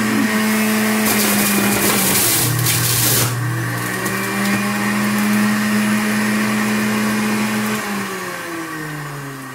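Power XL self-cleaning centrifugal juicer's motor running with a loud, steady hum. Its pitch drops under load as carrots are pushed down the chute and shredded, with a grinding rasp for about two seconds. Near the end the motor slows and its hum falls in pitch.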